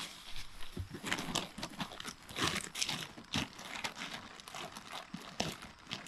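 Tent fabric rustling and crinkling as it is handled, folded and packed by hand, in irregular crackly rustles.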